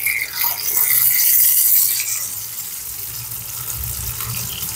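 Unniyappam batter poured into hot oil in the wells of an old appam pan (kaaroola), sizzling as it hits the oil. The hiss is loudest in the first two seconds, then settles to a steadier, quieter frying sizzle.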